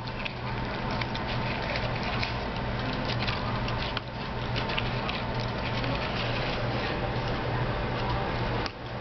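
A raccoon licking and lapping sour cream out of a plastic tub: a rapid, continuous run of small wet smacking clicks.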